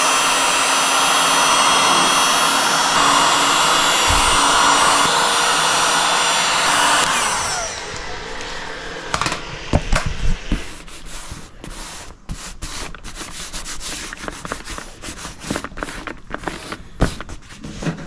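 Electric heat gun running with a steady blowing whine, switched off about seven seconds in and winding down. After that, scattered rustles and taps as the trunk mat is handled and smoothed.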